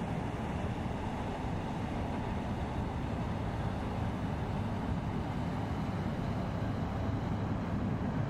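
Low, steady rumble of an inland cargo vessel's 970 hp diesel engine as the ship passes, growing slightly louder in the second half.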